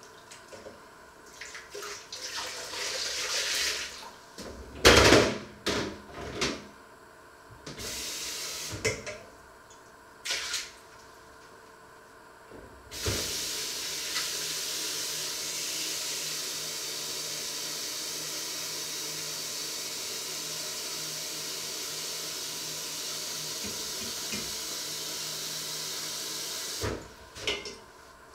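Kitchenware being handled with several knocks and clatters, one loud knock about five seconds in. Then a kitchen tap runs steadily into the sink for about fourteen seconds and is turned off, followed by a couple more knocks.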